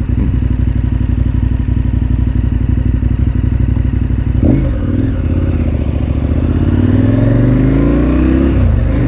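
KTM 1290 Super Adventure R's V-twin, fitted with an Akrapovič slip-on exhaust, idling steadily, then pulling away about halfway through. The revs climb, drop once near the end as it shifts up, and rise again.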